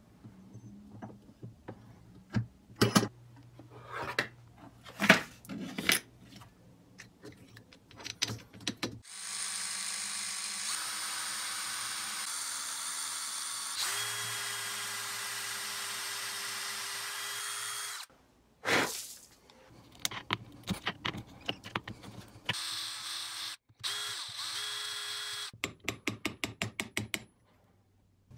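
Power drill boring out the broken wooden handle stub left in a hammer head's eye, running steadily for about nine seconds with a step up in pitch partway through, then a second short run. Before and between the runs come clicks and knocks of the steel head and tools being handled in the vise, and near the end a quick run of even clicks.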